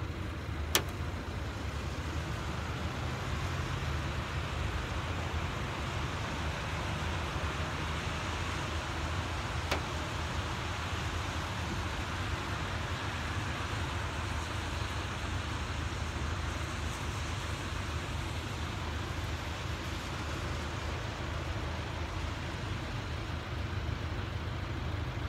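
Steady low rumble of a distant CSX diesel freight train approaching, with a faint hiss over it. Two short sharp clicks come about a second in and about ten seconds in.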